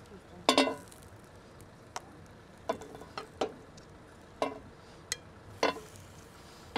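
Metal barbecue tongs clicking and scraping on a hot grill plate and a serving plate while grilled bites are picked up: about seven short, sharp clinks, the loudest a double clink about half a second in, over a faint steady sizzle.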